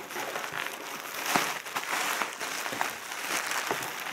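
Thick plastic bubble wrap crinkling and crackling as a wrapped bundle is lifted out of a cardboard box and handled.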